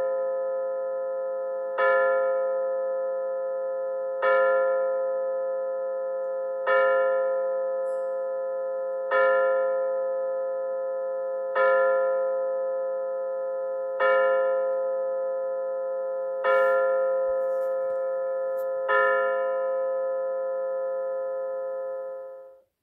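Bulova pendulum wall clock striking nine o'clock in a Big Ben-style bell tone: evenly spaced bell strokes about two and a half seconds apart, each ringing on into the next, the last one cut off abruptly near the end.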